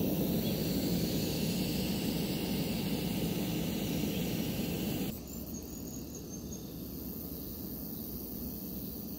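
Steady outdoor background noise, a low rumble with hiss, dropping abruptly to a quieter, duller level about five seconds in.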